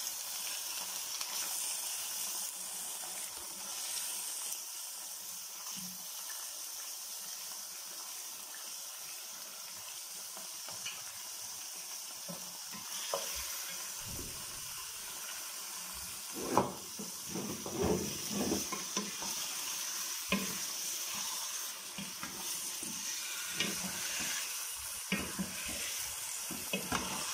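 Chicken pieces frying with onions in hot oil in a pot over high heat, a steady sizzling hiss as the chicken gives off its water. From about halfway through, a spatula stirs and scrapes the chicken, with irregular knocks against the pot.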